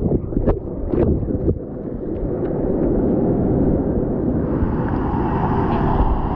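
Artificial standing-wave pool's whitewater churning close around a GoPro in the water: a steady, heavy rushing, with a few sharp splashes in the first second and a half.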